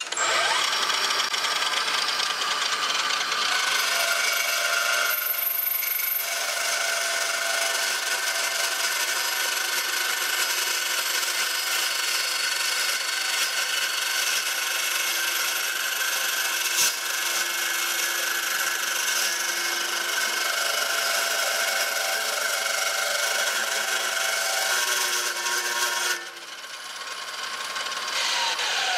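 Miter saw with a 2 hp motor on speed control, its blade at about 1500 RPM, cutting through 3-inch square steel tube with a 3/16-inch wall: a steady grinding with ringing tones. About three seconds before the end the cut stops, and near the end the saw winds down with a falling whine.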